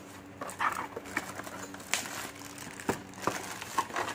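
Cardboard box being handled and its end flap pried open by hand: a series of irregular scrapes, taps and rustles of cardboard, with crinkles of bubble wrap underneath.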